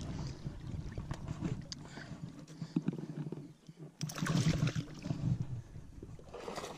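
Water sloshing and splashing against the side of a bass boat as a hooked bass is brought alongside to be landed by hand, with wind on the microphone and scattered small knocks. It grows suddenly louder about four seconds in.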